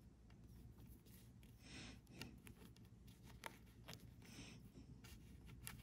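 Near silence, with faint rubbing and a few small clicks as a rubber sheath is worked along a bundle of turn-signal switch wires.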